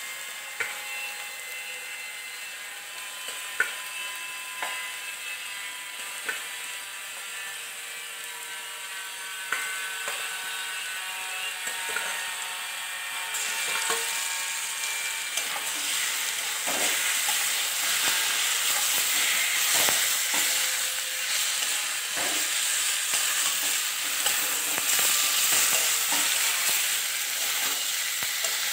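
Sliced onions sizzling in hot oil in a wok, with a few sharp knocks of a spatula against the pan. About halfway through, the sizzle suddenly becomes much louder as marinated chicken pieces go into the hot oil. Near the end a spatula stirs and scrapes through the chicken and onions.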